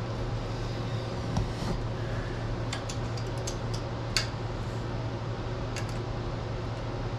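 A few scattered sharp clicks and taps of tools and metal parts as the mini bike's seat bar is fastened, over a steady low hum.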